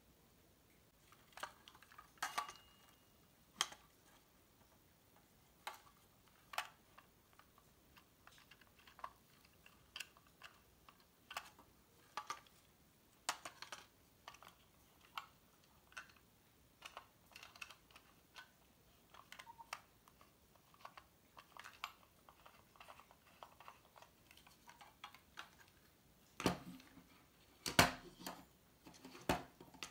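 Irregular clicks and light knocks of plastic and metal parts being handled: the opened case, back cover and wiring of a disassembled twin-bell alarm clock. Near the end, a few louder knocks as the parts are set down on a tabletop.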